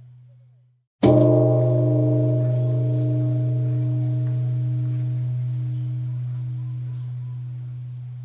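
A Buddhist temple bell is struck once about a second in and rings on with a strong, steady deep hum and several higher overtones that slowly fade. Just before the stroke, the previous ring dies away to silence.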